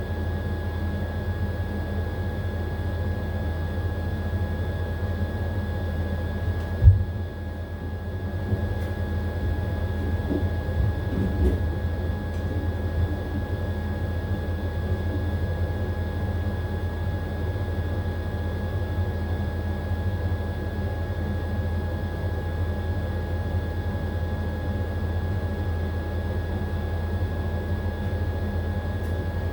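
AQUA AQW-DX12M drum-type washing machine running at a steady speed, likely late in its spin stage: a constant low hum with a steady motor whine over it. One sharp knock comes about seven seconds in, followed by a few seconds of uneven rattling.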